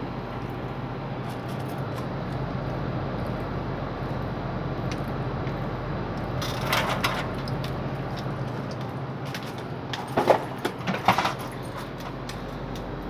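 Outdoor condensing unit of a Midea 24,000 BTU DC inverter mini-split running with a steady hum while its refrigerant pressures are read on a gauge manifold. Brief metallic clinks and knocks from the gauge hoses and brass fittings being handled come a little past the middle and again several times near the end.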